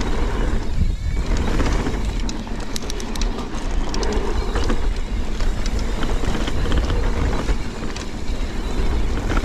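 Mountain bike ridden fast down a dirt jumpline: a steady rushing noise of wind and tyres, heaviest in the low end, with a burst of sharp rattling clicks from the bike about two to three and a half seconds in.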